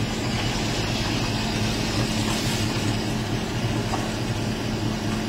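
A steady low engine hum, like a vehicle idling, with a constant hiss over it.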